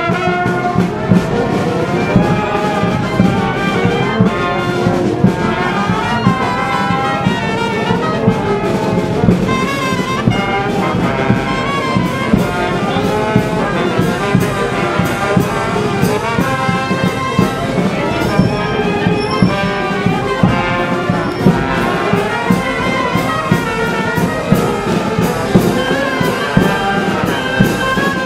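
Marching brass band of trumpets, trombones and a sousaphone playing a tune, with a bass drum keeping a steady beat.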